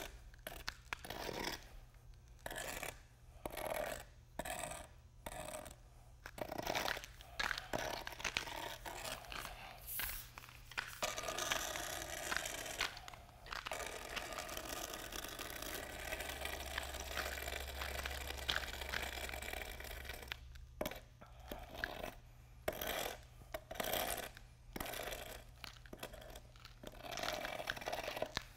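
Gauge rake being drawn back and forth through wet self-leveling urethane cement, with spiked shoes stepping in the fresh mortar. Separate scraping strokes come about one every half second to a second. A steadier stretch of scraping runs through the middle, then separate strokes return.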